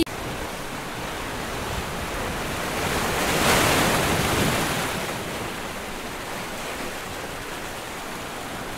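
A steady rushing hiss, like surf or wind, that swells to its loudest about three and a half seconds in, then eases back to a steady level.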